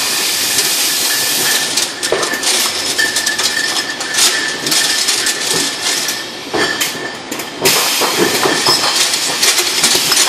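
Beer bottling filler running: a steady hiss of gas and air with many clinks and knocks of glass bottles and machine parts, over a faint steady high whine. The hiss drops briefly a little after seven seconds, then comes back.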